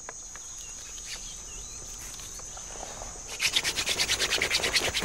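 Wooden hand fire drill spun between the palms into a hearth board: wood rubbing on wood. From about three seconds in it becomes a fast, even scratching, roughly ten strokes a second, and grows louder.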